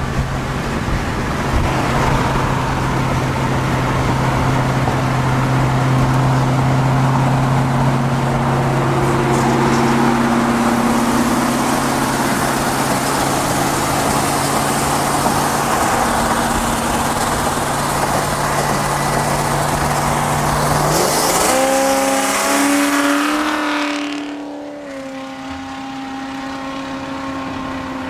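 Oldsmobile 442 muscle car driving, its engine holding a steady low drone under heavy road and wind noise. About three-quarters of the way through, the engine revs up with a rising pitch, then the road noise drops away and a steadier, quieter engine tone remains.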